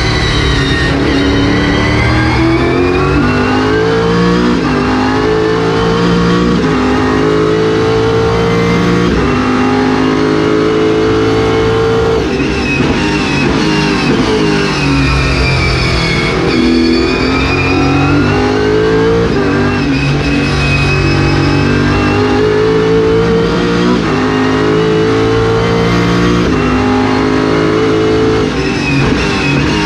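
MARC Car race car engine heard from the cockpit at racing pace, revving up through the gears in repeated rising steps with quick upshifts, and falling away a few times under braking and downshifts.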